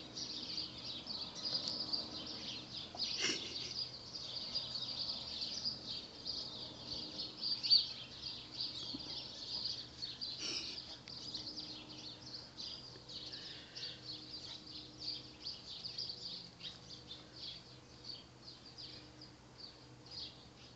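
Garden birds singing and chirping without pause, a dense chorus of short high calls. A brief thump comes about three seconds in and another about ten seconds in.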